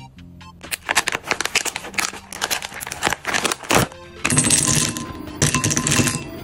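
Crinkly plastic snack packets handled and torn open, with many sharp crackles. Then hard chocolate discs are poured into a glass bowl, clattering against the glass in two pours near the end.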